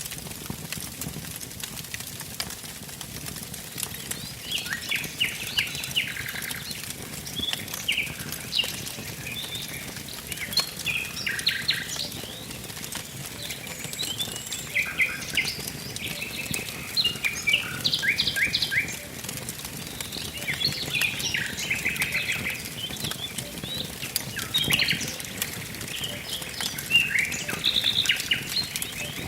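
Songbirds singing short, repeated trilled phrases over the steady crackle and small pops of a burning wood fire.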